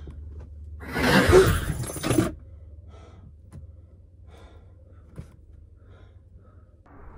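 A loud crash with a shattering, breaking quality about a second in, lasting just over a second with a second hit at its end. Then faint small knocks and rustles, and near the end a low steady rumble sets in.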